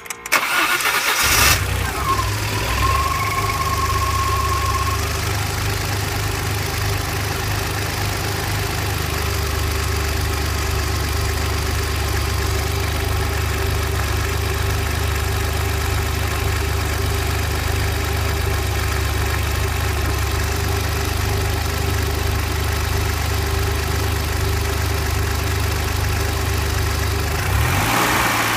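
Engine of a manual-gearbox vehicle started in neutral: a brief crank, then it catches and idles steadily. A thin steady high tone sounds for a few seconds just after the start. The clutch pedal is pressed about twelve seconds in, and near the end the clutch is let out and the throttle is blipped lightly.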